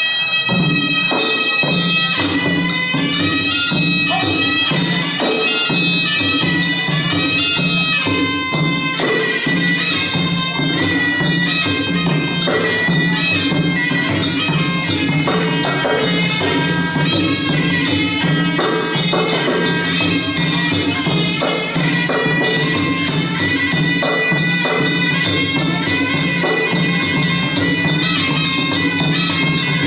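Traditional Khmer boxing ring music: a reedy, oboe-like wind melody played continuously over drums and small hand cymbals, as accompanies the fight.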